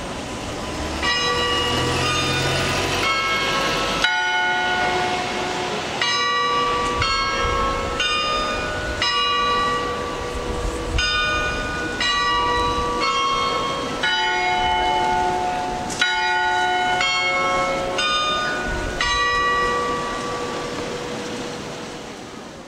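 Church bells ringing: a long sequence of strikes on several bells of different pitches, about one to two strikes a second, each note ringing on into the next.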